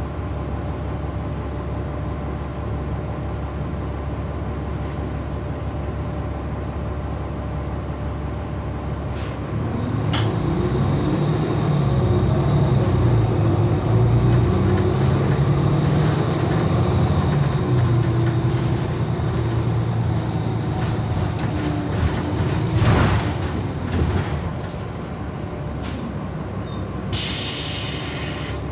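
Cummins diesel engine of a Nova Bus LFS city bus heard from inside the cabin. It runs low and steady at first, then about ten seconds in it grows louder with its pitch rising as the bus accelerates, and it eases off again later. A short loud noise comes a little after the midpoint, and a brief hiss of air near the end.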